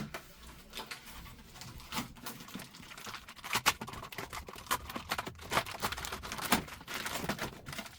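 Packaging being handled and opened by hand: a busy run of irregular crinkles, rustles and clicks, with a few sharper cracks in the middle.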